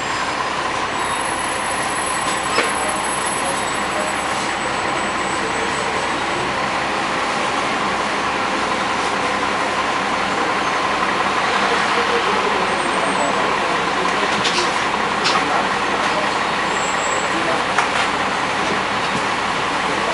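Steady noise of a sightseeing bus driving through city traffic, heard from its open upper deck, with a few sharp clicks along the way.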